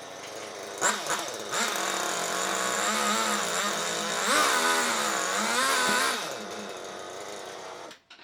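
A power tool's motor running hard, its pitch wavering and dipping as it works under load, then cutting off near the end.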